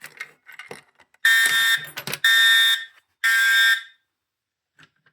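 Edwards Integrity fire alarm horn sounding the temporal code-3 pattern: three loud, harsh blasts of about half a second each, starting about a second in, then a pause. A few faint clicks come before the blasts.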